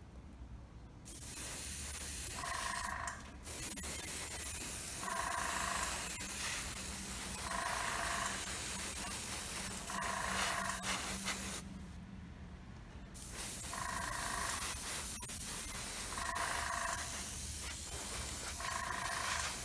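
Iwata airbrush hissing as it sprays primer onto a miniature, stopping for about a second and a half around the middle, over the steady hum of its air compressor. A short pitched tone recurs about every two and a half seconds.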